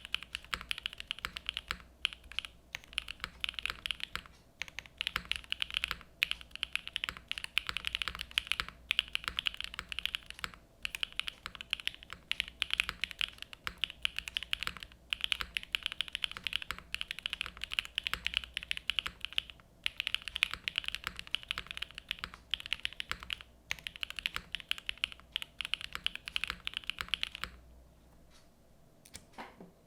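Fast, continuous typing on a Sanction TKL custom mechanical keyboard with Gateron Raw switches on a polycarbonate plate and Keykobo keycaps. Rapid keystroke clicks come in long runs with short pauses and stop shortly before the end.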